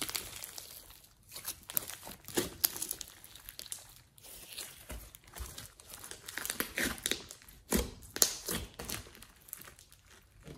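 Thick mixed slime being squeezed, stretched and folded by hand, giving dense, irregular crackles and squishes of trapped air. It goes quieter about nine seconds in, as the hands let go.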